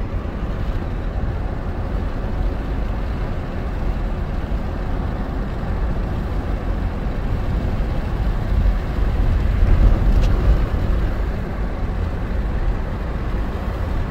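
Steady rumble and road noise of a car driving, even throughout.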